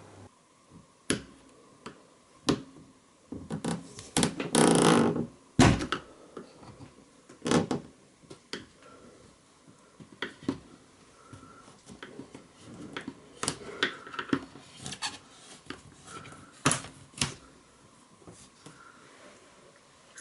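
A flat screwdriver prising a push-fit rubber seal out of a uPVC window frame: scattered clicks and taps, with a longer scrape about four to five seconds in.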